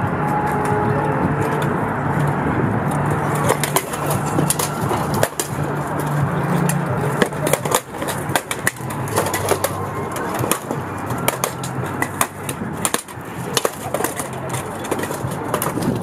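Repeated sharp clanks and knocks of steel swords and shields striking plate armour and helmets in an armoured medieval fight, irregular and frequent, over a steady low background hum.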